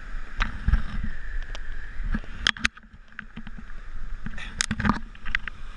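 Surf and splashing in shallow sea water: a steady rushing with scattered sharp splashes and knocks, which drops away briefly about three seconds in.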